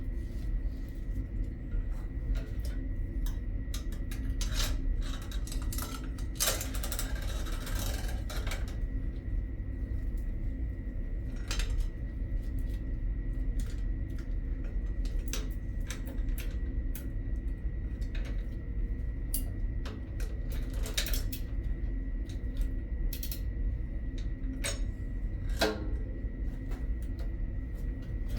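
Scattered metallic clicks and clinks of tools and parts being handled, over a steady low rumble and a faint steady high tone.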